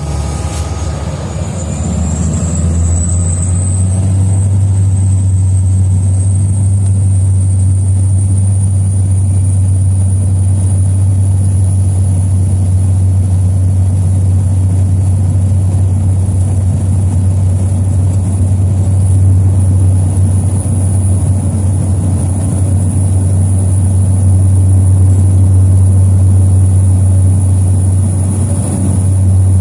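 Small turboprop aircraft's engine and propeller at takeoff power: a high whine climbs in pitch over the first several seconds as the engine spools up, then holds steady over a loud, steady low drone.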